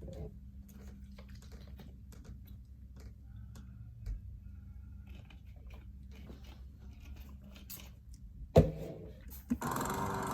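Quiet room tone with a steady low hum and scattered faint clicks, broken by a sharp knock about three-quarters of the way through and a smaller one shortly after. A louder sound with a steady pitch comes in just before the end.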